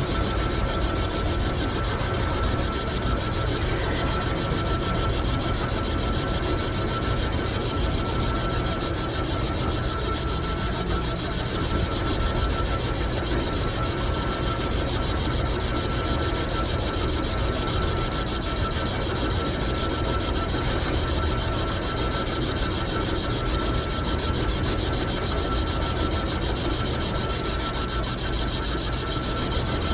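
Metal lathe running steadily with a constant high whine over a low rumble.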